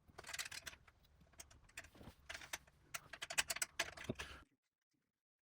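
Irregular run of small metallic clicks and taps from an 8mm wrench working the nuts that hold a bike's rear light bracket. The sound cuts off abruptly about four and a half seconds in.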